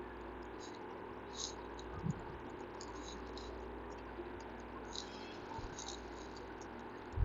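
Faint, brief scratches of a stylus writing on a pen tablet, over a steady low hum of room tone, with a soft low thump near the end.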